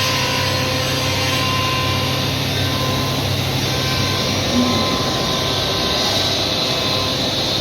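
Woodworking 5-axis CNC router running and cutting wood: a steady rushing machine noise over a constant low hum, with a brief thump about four and a half seconds in.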